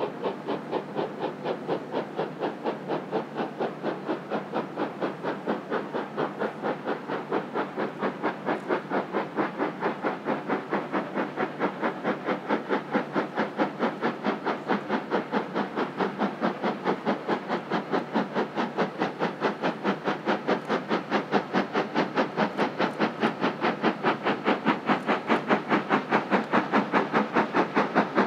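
B1 class 4-6-0 steam locomotive's two-cylinder exhaust beating in a steady, rapid, even rhythm as it works a train of five Mk1 carriages, growing gradually louder as it approaches.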